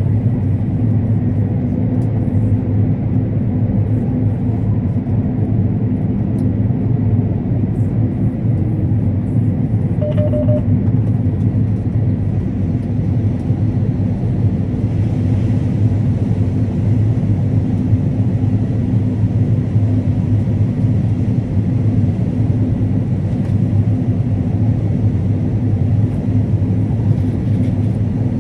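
Combine harvester running steadily while harvesting corn: a constant, even, low drone of engine and threshing machinery. A short faint beep about ten seconds in.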